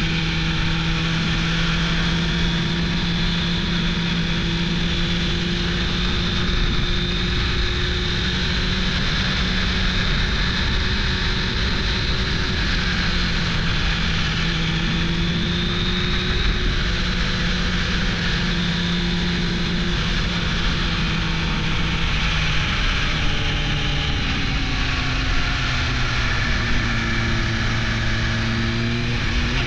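1998 Suzuki GSX-R600 SRAD's inline-four engine running at steady revs while riding, over a constant rush of wind. The engine note drops a little a bit over twenty seconds in and wavers, then starts rising again near the end.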